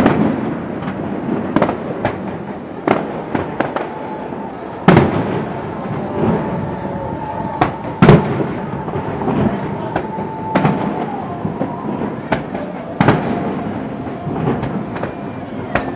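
Fireworks display: a rapid series of bangs and crackles from bursting shells, the loudest about five and eight seconds in.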